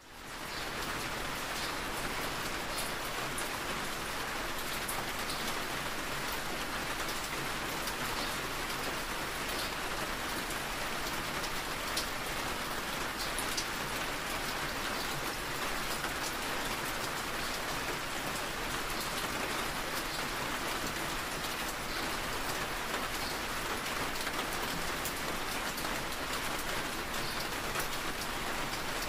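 Steady rain on a car's windshield and roof, heard from inside the moving car, with scattered sharper clicks of single drops.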